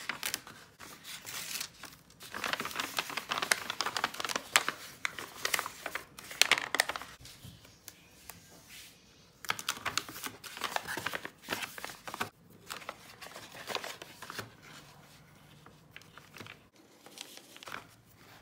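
Brown kraft paper envelope rustling and crinkling as it is handled, folded and pressed shut, in irregular bursts with a couple of short lulls.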